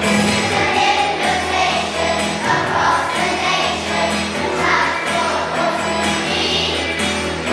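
Children's choir singing together over musical accompaniment with a steady bass line.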